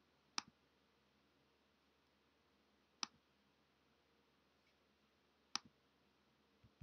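Computer pointer clicks over near silence: three sharp clicks about two and a half seconds apart, each followed closely by a fainter tick, then two faint ticks near the end.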